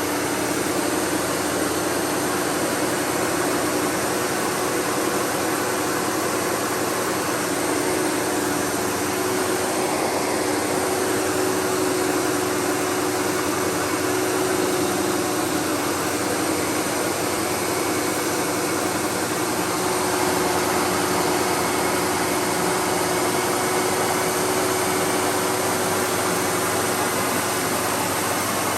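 Windsor SR15 vacuum cleaner running steadily over berber carpet, a continuous motor whine and airflow rush with one steady low tone and no breaks.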